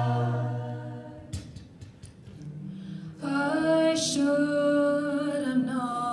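Mixed-voice a cappella group singing: a held chord over a deep bass note fades away about a second in. After a short near-quiet gap, a new chord of several voices enters a little after three seconds, with a brief hiss near four seconds.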